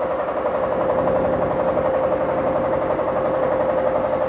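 Fishing boat's engine running steadily, with an even, rapid low chugging and a constant hum.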